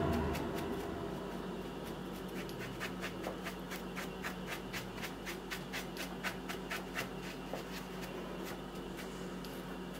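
Paintbrush bristles scratching over the velvety cap of a scarletina bolete in quick, repeated strokes, about four a second, brushing off dirt.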